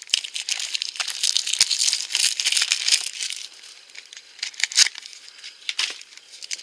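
Crinkling cellophane wrap and the clicking and rattling of two small hard-plastic Shopkins gift boxes being handled and worked loose from their blister pack. The crinkling is dense at first, then gives way to scattered clicks about halfway through.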